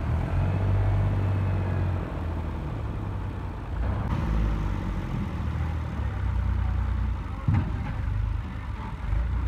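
Diesel tractor engine running hard under load, its level rising and falling as the rear wheels spin in soft sandy mud trying to pull a stuck, brick-loaded trolley free. A single brief knock about three quarters of the way through.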